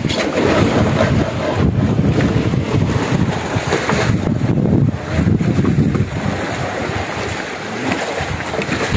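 Wind rushing over the microphone, rising and falling, with the sea washing around a moored fishing boat.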